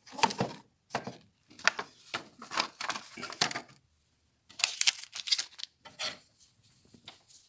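Irregular plastic clicks and knocks from an Epson printer being handled as its ink refill is finished, with a short pause about halfway through.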